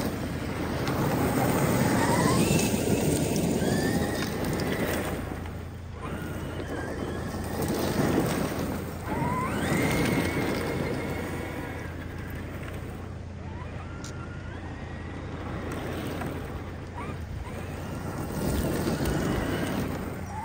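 Traxxas X-Maxx electric RC monster truck being driven on gravel. Its brushless motor whines upward in pitch with each burst of throttle, several times over, above a swelling rush of noise from the tyres on loose gravel.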